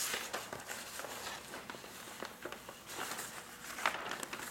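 Paper rustling and crackling in irregular short bursts as a sheet of painting paper backed with silicone mounting film and release paper is lifted and turned over by hand.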